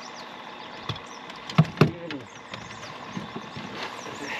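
A few sharp knocks and thumps in an aluminium fishing boat while a freshly landed largemouth bass is handled, the loudest two close together about halfway through. Birds chirp throughout.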